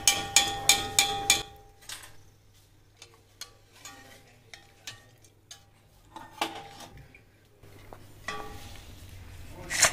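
Kitchen utensils and dishes clinking and knocking: a quick run of sharp knocks with a brief ring in the first second and a half, then only scattered light clicks. A faint steady hiss comes in near the end.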